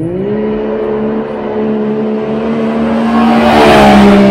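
Turbocharged three-cylinder engine of a Can-Am Maverick X3 side-by-side accelerating hard on a 0-to-60 run. Its note rises at the start, then holds a steady pitch while growing louder as the machine closes in and passes close by near the end.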